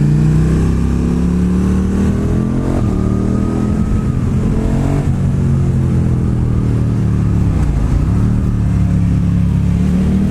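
KTM Super Duke R's V-twin engine under way, its note rising and falling with the throttle, dropping sharply just before 8 seconds in and climbing again.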